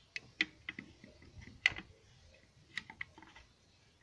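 Small irregular clicks and ticks of a capacitor's legs being worked into the plastic ZIF test socket of a component tester, the sharpest click about two seconds in.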